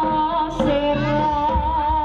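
Live East Javanese jaranan gamelan music: a held, wavering melody line over the ensemble, with low drum strokes coming in near the end.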